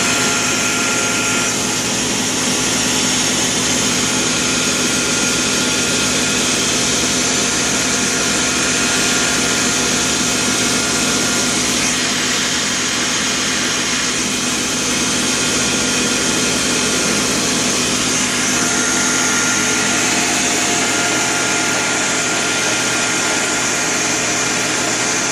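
1923 South Bend Model A 9 lathe running steadily with its back gears and power feed disengaged: an even mechanical hum with a thin high whine that drops out for a few seconds past the middle.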